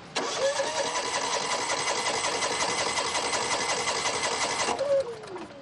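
Food-truck generator engine running with a fast, even clatter, then cutting off abruptly about four and a half seconds in, its pitch falling briefly as it winds down. The generator is failing.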